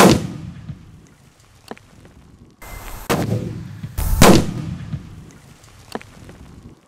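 A Virus 4 firecracker buried in soft soil exploding with a loud, sharp bang. Two more loud bangs follow about three and four seconds in, with a few short cracks between them, as the same blast is heard again from other camera angles.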